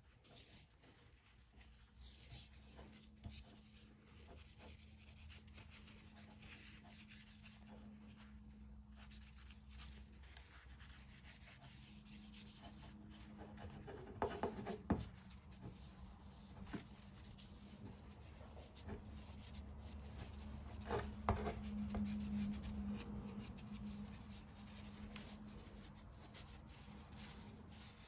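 Cloth rubbing along a steel drawknife blade as it is wiped down, a faint scratchy sound, with a few light knocks of the tool about halfway through and once more a little later.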